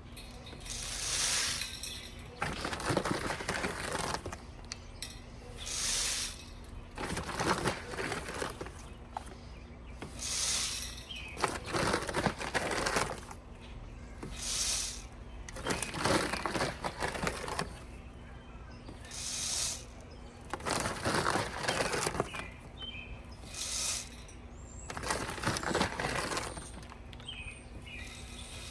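Birdseed poured from a scoop into a bird feeder: about a dozen short, rattling, hissing pours of dry seed, one every two seconds or so.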